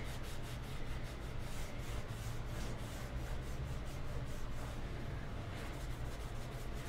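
Paper towel rubbed by fingertips back and forth over a painted, stencilled chair seat, a steady scrubbing of many short strokes: the paint is being distressed off the stencil pattern. A low steady hum lies underneath.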